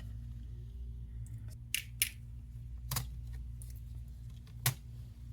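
A few short, sharp clicks and taps of a screwdriver and small screws on a Dell G3 laptop's motherboard as the board's screws are taken out, over a steady low hum.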